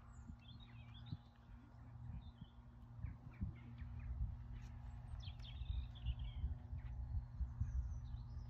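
Wind rumbling on the microphone, with small birds chirping in short bursts a few times.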